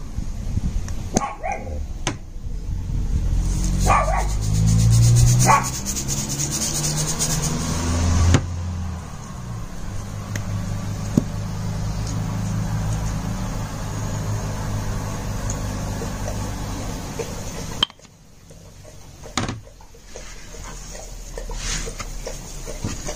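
A dog barking a few times, with the fine rasp of a metal hand spice grinder grinding over the meat during the first half.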